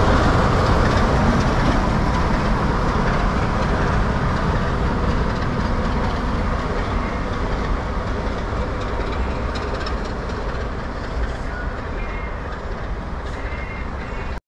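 Class 44 'Peak' diesel locomotive passing close and pulling away under power, its engine running with wheels on the rails, the sound fading steadily as it goes.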